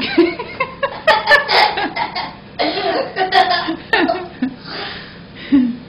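Laughter in short, broken bursts that die down about four seconds in.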